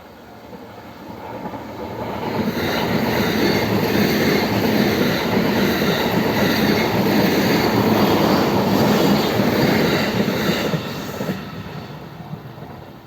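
E657 series limited express train passing a level crossing at speed. A dense rush of wheel and rail noise swells over about two seconds, stays loud for about nine seconds, then dies away near the end. The level crossing's warning bell rings faintly beneath it at the start and end.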